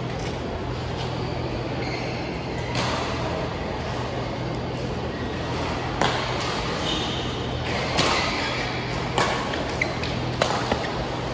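Badminton rally: a racket striking the shuttlecock again and again, about seven sharp pings, spaced a second or two apart at first and coming faster near the end. A steady low hum runs underneath.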